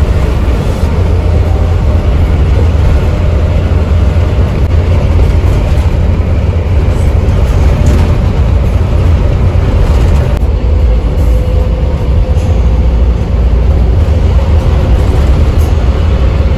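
Bus engine and road noise heard from the front of the cabin while cruising on a highway: a loud, steady low rumble, with a faint whine that creeps slightly higher in the second half.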